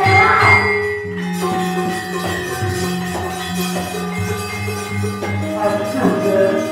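Javanese gamelan ensemble playing: ringing metallophone notes held over a low, steadily pulsing bass.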